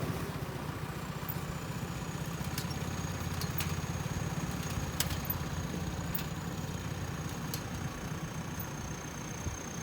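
JCB 3DX backhoe loader's diesel engine running steadily at low revs, with a thin high whine over it and a few sharp clicks.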